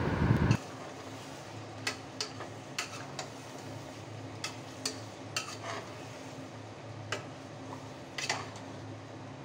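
A metal spoon stirring raw mutton pieces into thick masala in an aluminium pressure cooker: soft scraping and about ten sharp clinks against the pot, over a steady low hum. It opens with a louder burst of noise that cuts off suddenly within the first second.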